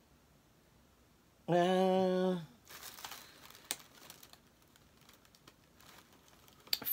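A short held "mmm" hum in a woman's voice at a steady pitch, about a second and a half in. It is followed by a few seconds of soft crinkling, rustling and small clicks as the crochet hook's packaging is handled.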